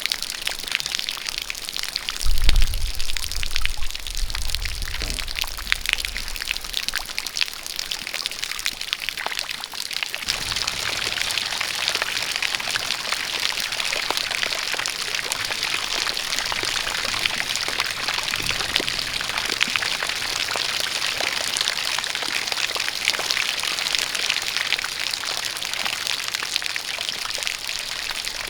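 Rain falling with a jet of water pouring steadily. A brief low rumble comes about two seconds in, and the hiss of the water turns a little brighter after about ten seconds.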